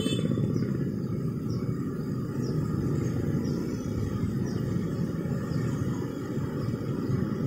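Road traffic of motorcycles and cars driving across a level crossing: a steady mix of small engines running and tyres on the road.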